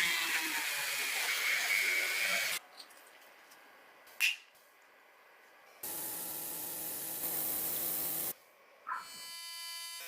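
Two separate bursts of hissing noise, each about two and a half seconds long, with a short sharp sound between them and a brief buzzing tone near the end.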